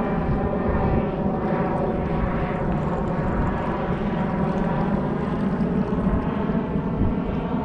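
A steady engine drone: several even, unchanging tones over a rough low rumble.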